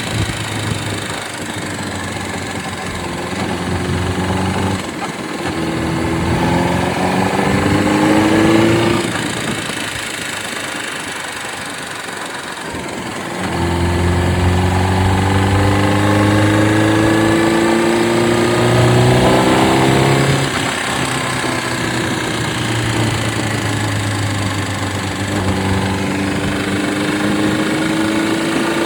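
Honda CBR600RR (PC37) inline-four engine running and revved up three times, each time the pitch climbing slowly for several seconds before dropping back to idle. The owner presents it as making a strange noise, not yet identified.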